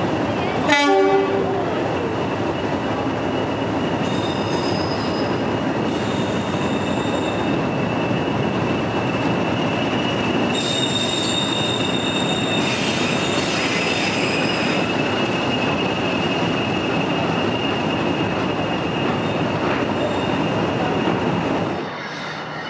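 Mainline diesel locomotive sounds a short horn blast about a second in, then runs past hauling coaches, its engine and the train's wheels making a steady loud rumble. High-pitched wheel squeal comes and goes twice as the coaches go by.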